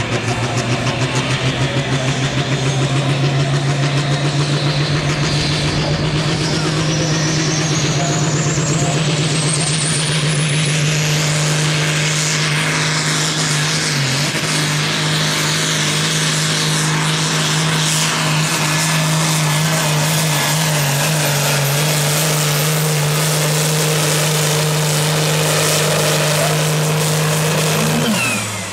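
Diesel pulling tractor running flat out while dragging a weight sled: a loud, steady engine drone with a high whine that climbs in pitch over several seconds and then holds. Near the end the engine sound drops away suddenly.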